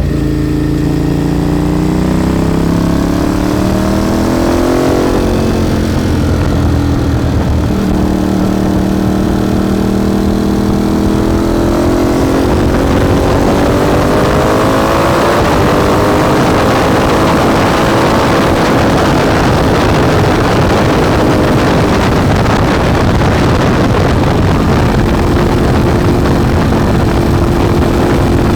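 Ducati motorcycle with a Termignoni exhaust being ridden: the engine note climbs under acceleration, drops as it shifts up a gear around five seconds in, holds, then climbs again. It settles into a steadier cruise in the second half, with wind rush growing over it.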